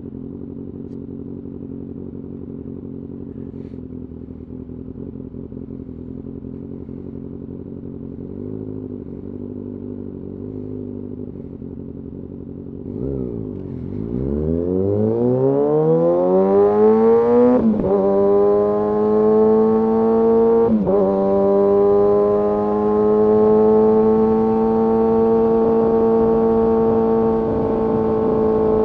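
Kawasaki ZX-6R inline-four sportbike engine running at steady low revs, then accelerating hard about 13 seconds in, its note rising quickly with two brief breaks for upshifts, and settling into a steady, louder high-revving cruise.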